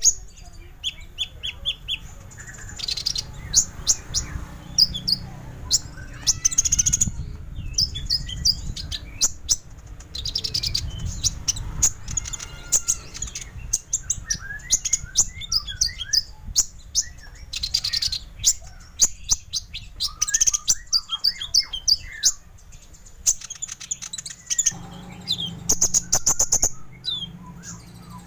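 Kolibri Ninja sunbird song: bursts of sharp, high-pitched chirps and rapid trills, with short whistled glides between them.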